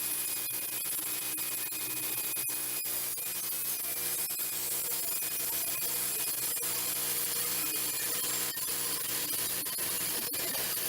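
Wood-Mizer portable band sawmill running steadily, a continuous mechanical noise with a steady whine.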